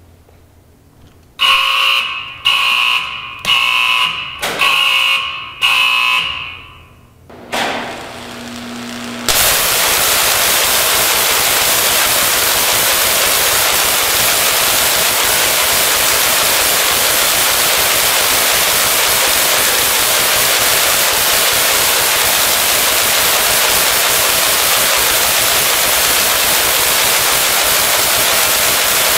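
A warning alarm beeps five times, about once a second, followed by a brief low hum. About nine seconds in, the loud, steady hiss of a 75,000-volt electric arc starts up and keeps going without a break.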